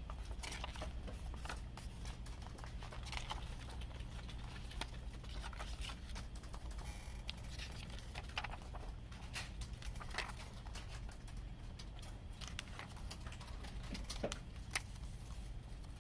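Hands handling a CD and its plastic packaging: irregular light clicks and taps with some crinkling, over a steady low hum, and one sharper click near the end.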